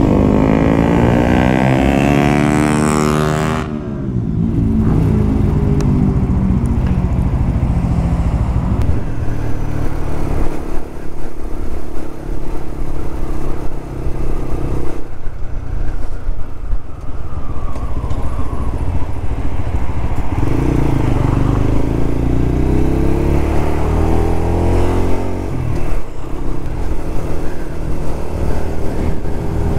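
Lexmoto LXR 125 motorcycle engine pulling away, its pitch rising for about three seconds before dropping off sharply. It then runs on steadily and rises again about twenty seconds in as the bike accelerates once more.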